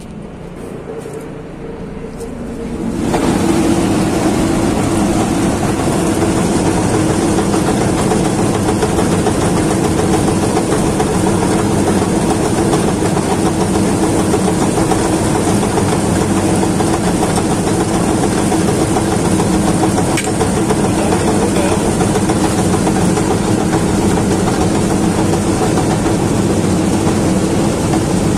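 Bulk feed truck's conveying machinery drawing feed from a silo outlet into its intake pipe. A quieter engine hum comes up about three seconds in to a loud, steady mechanical hum that holds evenly while the feed flows.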